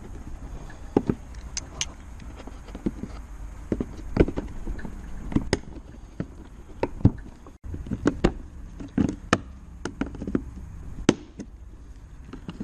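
Irregular clicks and knocks of pliers and a screwdriver prying at the plastic retaining clips of a car's rear bumper cover, over a steady low rumble.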